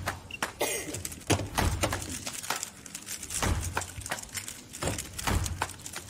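Plastic 3x3 Rubik's cubes clicking and clacking as several players twist them fast and set them down on a table, with a low thud every couple of seconds.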